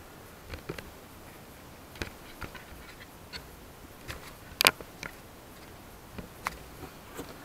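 Scattered light clicks and taps of a metal tool and hands on plastic luggage-compartment trim while prying at its push-in tabs, with one louder, sharp click a little past halfway.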